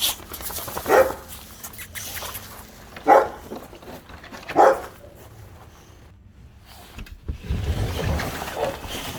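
A dog barking: three single sharp barks spaced a second or two apart, followed near the end by a low rumbling noise.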